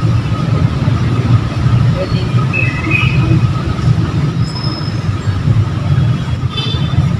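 Steady, loud low rumble of outdoor ambient noise, with a few faint high chirps about two and a half seconds in.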